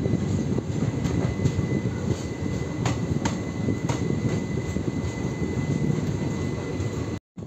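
Passenger train coach rolling slowly out of a station, a steady rumble with a few sharp clicks of wheels over rail joints, heard from beside the coach's side. It cuts off abruptly near the end.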